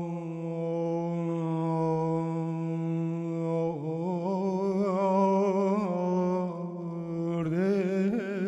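A solo low, male-range voice chanting without words. One long held note, then from about four seconds in a melodic phrase with wavering ornaments, and a fresh phrase beginning near the end.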